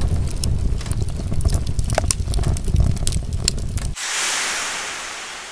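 Logo-intro sound effect of fire: a deep rumble with sharp crackles, cut off about four seconds in by a hissing whoosh that fades away.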